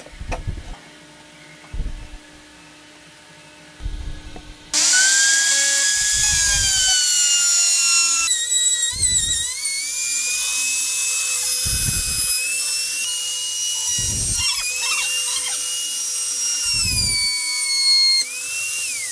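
A few knocks as the wooden jig is handled, then a compact trim router switches on about five seconds in and runs at high speed with a loud whine, cutting a groove in wood. Its pitch sags a little under load, with occasional low knocks from the sliding jig. Near the end it is switched off and the whine falls away as it spins down.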